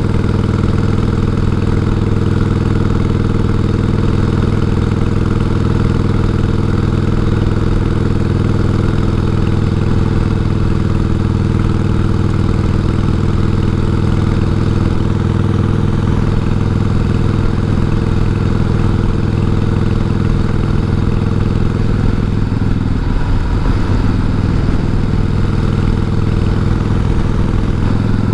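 1988 Harley-Davidson Heritage Softail's 1340 cc Evolution V-twin running steadily under way, heard through a helmet microphone. Its engine note wavers briefly near the end.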